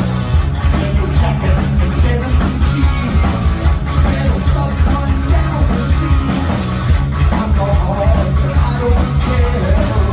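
Live rock band playing loud: electric guitar, bass and drum kit, with drums hitting at a steady, driving beat.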